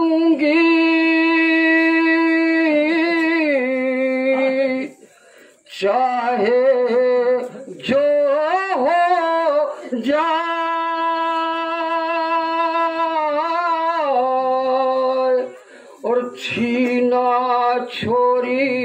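Men chanting a nauha, a Shia mourning elegy, without instruments: long held notes sung in phrases of a few seconds each through a microphone, with short breaths between phrases.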